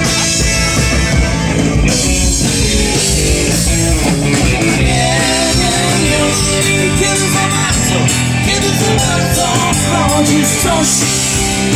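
Rock song played live with electric guitar and drums, with a sung or lead-guitar melody line coming in about halfway through.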